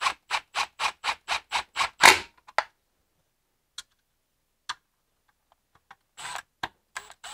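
Hand ratchet clicking in quick, even strokes, about four a second, for the first two and a half seconds, tightening the screws of a freshly refitted alternator voltage regulator. A few single light clicks and a brief handling noise follow.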